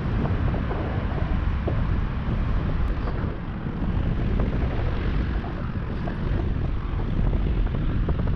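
Airflow buffeting the microphone of a paraglider pilot in flight, a steady low rushing of wind noise during a fast descent.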